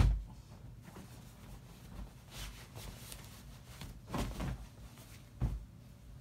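Faint rustling of a blanket and bedding as a person shifts in bed, in a few short bouts about two, four and five and a half seconds in, after a brief thump at the very start.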